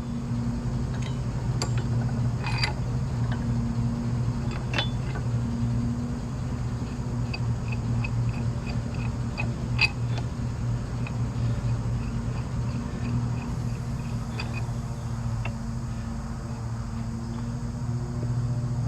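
Steady low machine hum, with a few light metallic clicks and clinks from tools and parts being handled.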